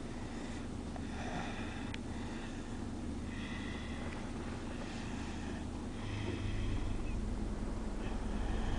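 A sleeping toddler snoring, a raspy snore with each breath about every one and a half to two seconds, over the steady low rumble of the car, which grows louder about six seconds in.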